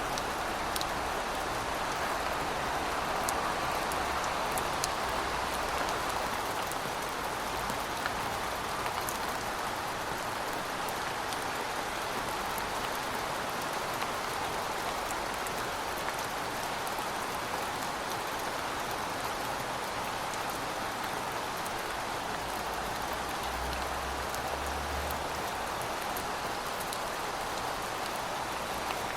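Steady rainfall: an even hiss of rain with scattered individual drop ticks.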